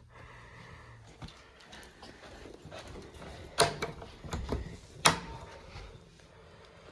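Light knocks and two sharp clacks of metal equipment being handled, the louder clacks about three and a half and five seconds in. A low hum stops about a second and a half in.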